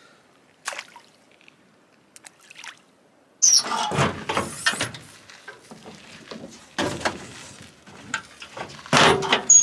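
Checker-plate aluminium ute canopy door being unlatched and opened: a sudden loud clunk and rattle about three seconds in, followed by further knocks and rattles near seven seconds and again near the end.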